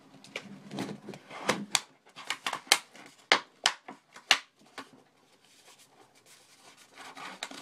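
Packaging casing being pulled off a kettle base by hand: a quick run of sharp crackles and clicks for about five seconds, then only faint rustling.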